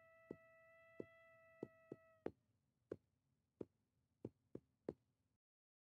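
Faint intro music: a single held note, with sharp clicks at irregular intervals laid over it. The note stops a little over two seconds in; a few more clicks follow, then the sound cuts to silence.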